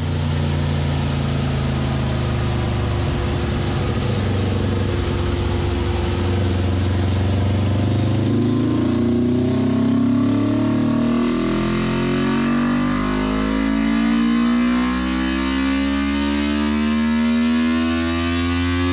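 Yamaha R3's 321 cc parallel-twin engine running on a chassis dyno. It holds a steady speed at first, then from about eight seconds in its pitch rises slowly and steadily as the revs climb through a pull.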